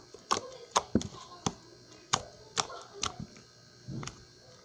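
Slime being squeezed and folded in the hands, giving a string of sharp clicking pops, roughly two a second at an uneven pace.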